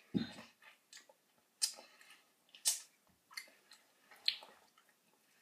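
Mouth sounds of a person biting and sucking on a lemon slice: a soft thump at the start, then irregular short wet smacks and slurps, the sharpest about a second and a half, two and a half and four seconds in.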